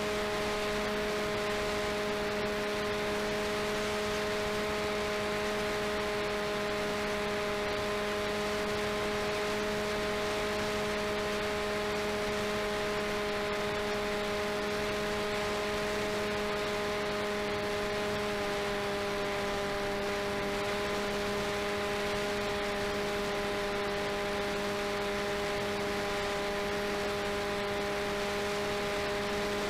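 RCTimer 5010 630KV brushless outrunner motor on a 4S LiPo, spinning the propeller of an FPV delta wing in flight at steady throttle. It gives a steady electric hum with rushing air hiss, as picked up by the camera on the airframe, and the pitch shifts slightly about eighteen seconds in.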